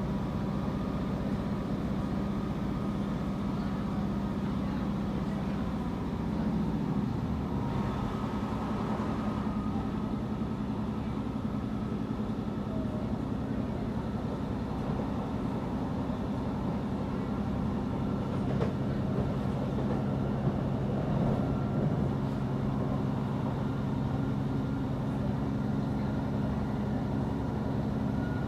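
Steady low drone of a running vehicle, its pitch shifting about six seconds in.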